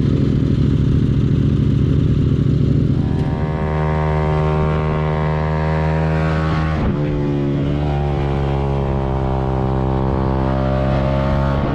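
Suzuki GSX-R150's single-cylinder four-stroke engine running, rough and noisy for the first few seconds, then settling into a steady idle about three seconds in. Its speed dips and recovers briefly about seven seconds in.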